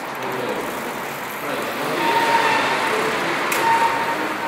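Street ambience along a shopping arcade: a steady wash of traffic noise and faint distant voices, getting a little louder about two seconds in, with a short, steady high tone heard twice.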